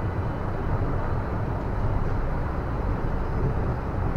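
Passenger train moving slowly through a station, heard from the side of a coach: a steady low running rumble.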